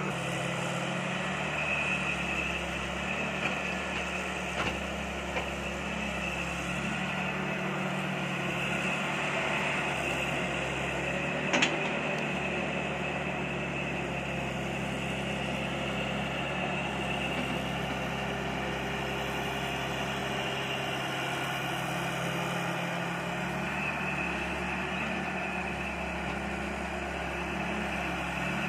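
Tata 200 excavator's diesel engine running steadily while it digs and loads a tipper truck, with a single sharp knock about twelve seconds in.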